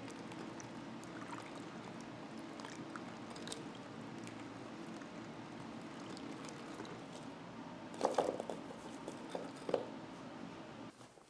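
Water running and pouring in a sink, a steady rush, with a short clatter of handling about eight seconds in and another brief knock near the end.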